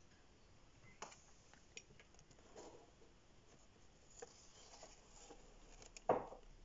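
Quiet room with faint, scattered clicks and knocks, and one louder knock near the end.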